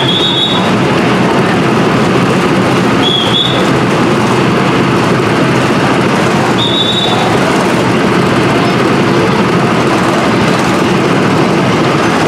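Amusement-ride car running on its track: a loud, steady mechanical rumble, with three brief high-pitched squeals a few seconds apart.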